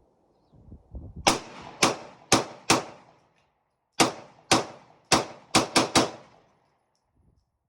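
Ruger Security-9 9mm pistol firing ten shots in two strings: four about half a second apart, then after a short pause six more, the last few in quicker succession.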